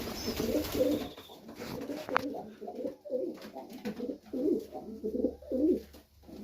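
Pigeons cooing in a loft, several birds calling over one another in low, pulsing coos, with a few light clicks and taps.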